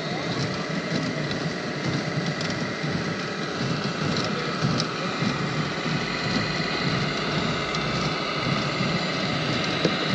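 Small electric motors of radio-controlled construction machines whining steadily, several tones drifting slightly in pitch, over crunching of gravel or dirt with scattered small clicks.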